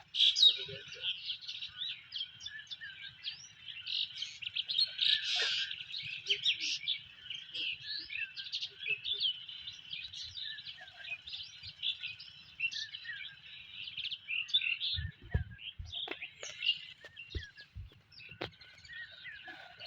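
Several small birds chirping and twittering continuously, with a few dull low knocks near the end.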